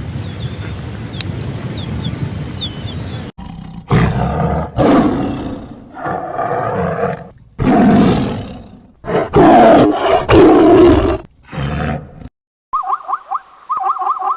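A big cat roaring: a series of loud, long roars after a few seconds of steady rumbling background with faint bird chirps. Near the end the sound cuts to a different animal's quick, pulsing calls.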